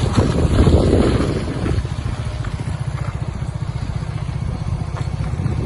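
A small vehicle engine running at low speed with an even, rapid low pulse, louder for about the first two seconds and then steady.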